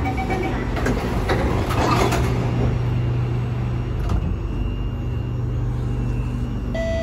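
The SMRT C751B train's door-closing warning beeps end just after the start. The doors then slide shut with a knock, over a steady low hum from the train's equipment. A click comes about four seconds in, and a chime begins at the very end.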